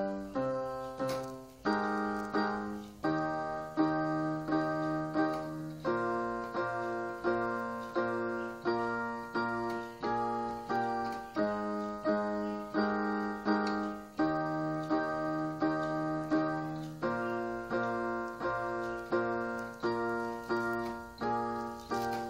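Portable electronic keyboard played with a piano voice: sustained chords under a repeating figure of notes, struck at a steady pulse of about two a second.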